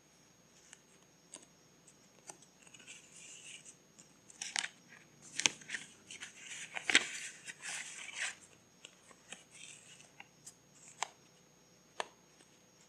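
Paper being handled during scrapbook crafting: a busy run of rustling and crisp snips or clicks from about three to eight seconds in, then a few scattered light taps.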